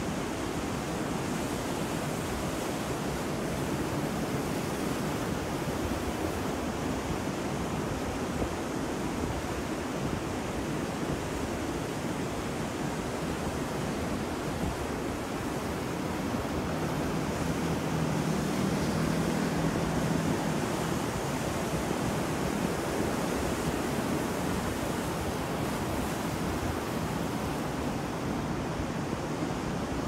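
Ocean surf breaking on a beach: a continuous wash of waves, swelling a little past the middle.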